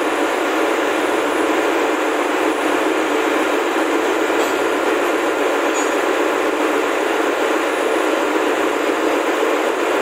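Steady, even roar of ship's engine-room machinery, with no strokes or rhythm in it.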